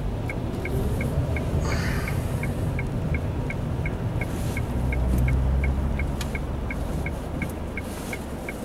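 Car turn-signal indicator ticking about three times a second inside the cabin, over the car's steady low engine and road hum.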